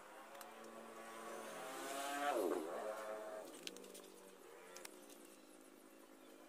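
A small engine running, growing louder to its peak about two and a half seconds in, where its pitch dips sharply and climbs again, then fading.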